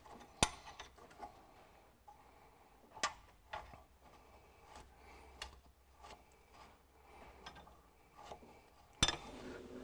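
Scattered light metallic clicks and knocks of hand tools and bolts as bolts are started and nipped up in the joint between a Ferguson TE20's engine and bell housing, with a short scraping rattle near the end.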